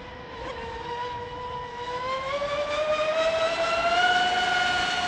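Oxidean Marine Animal 2 RC speedboat's motor and 42mm propeller running as a high whine that climbs in pitch and loudness as the boat is throttled up to full speed about halfway through, then holds steady at the top.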